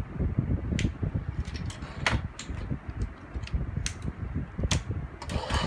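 Plastic ratchet joints of a Transformers Power of the Primes Abominus figure clicking as the limbs are worked, a dozen or so irregular sharp clicks over low handling rumble.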